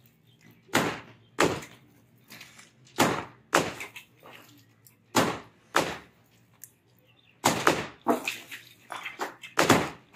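Hand hammers striking a concrete slab edge as it is broken up around the rebar. Sharp separate blows, in pairs a second or two apart at first, then coming faster and overlapping in the last few seconds as two hammers strike.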